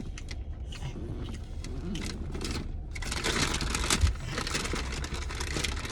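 Paper food bags and wrappers rustling and crinkling in a car, busiest in the second half with one thump, over a steady low hum.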